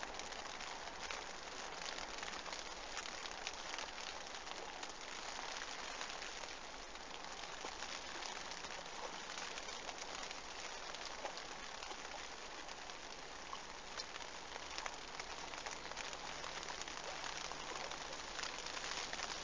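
Steady rain, a dense patter of drops, heard from under a fishing bivvy.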